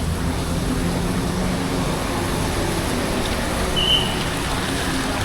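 Bus engine running low under a steady hiss of traffic noise, with one short, high whistle blip about four seconds in.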